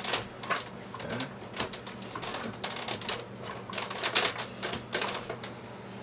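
Computer mouse buttons clicking, a Razer DeathAdder gaming mouse: an irregular run of about twenty quick clicks, some in fast pairs or triplets, stopping about five and a half seconds in.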